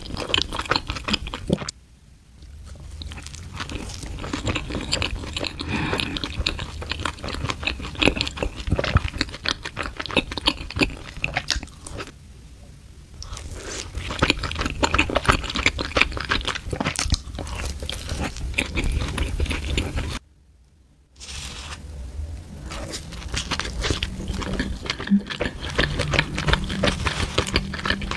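Close-miked biting and chewing of sugar-dusted, cream-filled doughnuts: a dense run of small clicks and mouth noises. It is broken by a short lull early on and a sudden near-silent gap of about a second two-thirds of the way through.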